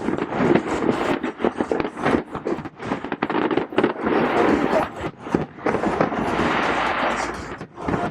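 Fireworks going off in rapid succession: many sharp bangs and pops in quick series, giving way about halfway through to a denser, steadier crackle. Crowd voices run underneath.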